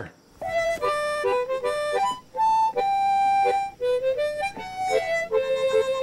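Instrumental theme music: a melody of held notes with changing pitch, starting about half a second in, once the spoken intro has stopped.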